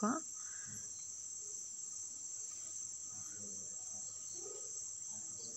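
Chicken pieces shallow-frying in oil in a nonstick pan, giving a steady high-pitched sizzle.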